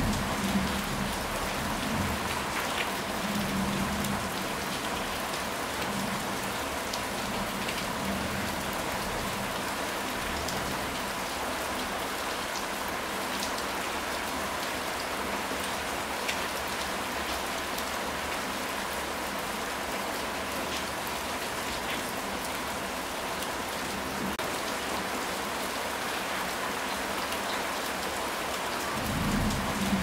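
Steady heavy rain falling on a clay-tiled roof, a dense, even patter. There are a few soft low rumbles in the first several seconds and again near the end.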